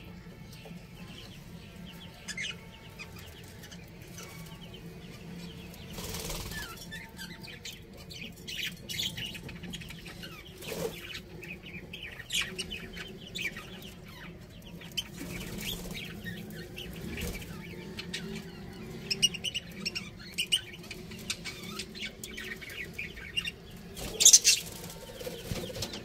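Budgerigars chirping in short, scattered high twitters while they feed at a corn cob, with a few louder rustles among them, the loudest near the end.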